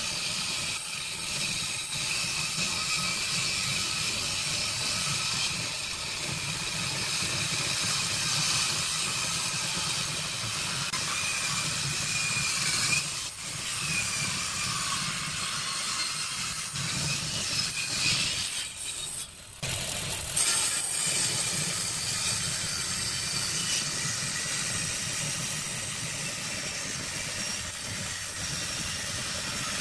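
Table saw blade ripping lengthwise through a rough-sawn wooden plank: a steady hissing whine of the blade in the wood, dropping away briefly twice, about halfway through and again about two-thirds of the way through.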